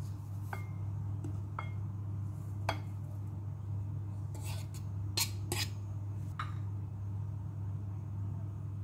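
Dishes clinking several times against a glass mixing bowl as flour is tipped into it; a couple of the knocks leave a short glassy ring. A steady low hum runs underneath.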